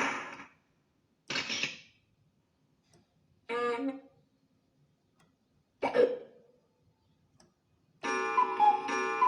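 A sequence of separate short sound effects with silences between: a brief noisy burst, a short pitched sound, and a sharp strike that rings briefly. About eight seconds in, a repeating electronic ringing melody starts.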